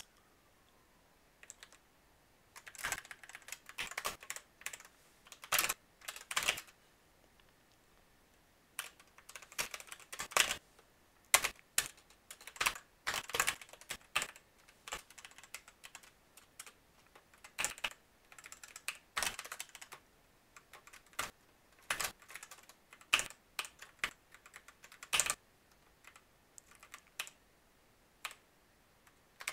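Typing on a computer keyboard: irregular bursts of quick keystrokes, with short pauses of a second or so between bursts.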